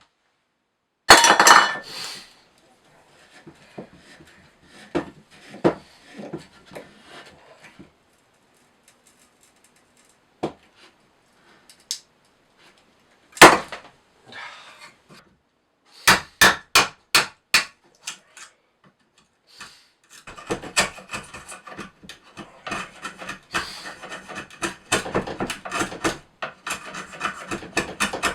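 Hand woodworking on timber. A clatter comes about a second in, followed by scattered knocks and a quick run of about six sharp knocks a little past halfway. From about two-thirds in come continuous rhythmic rubbing strokes on wood.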